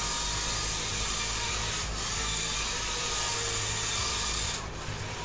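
Small remote-control drift car's electric motor running and its tyres scrubbing as they slide across a smooth floor: a steady rasping hiss whose high part drops away near the end.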